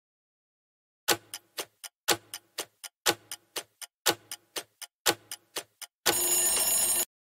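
Quiz countdown-timer sound effect: a clock ticking in one-second groups of four ticks, the first of each group loudest, for five seconds. An alarm buzz follows for about a second and cuts off sharply as time runs out.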